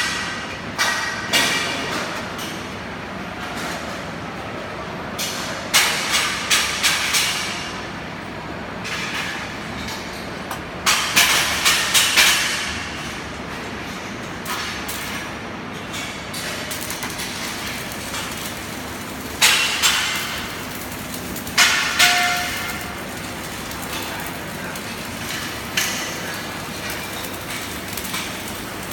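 Runs of sharp metal-on-metal strikes, a few quick blows at a time, repeated several times over a steady background of workshop noise.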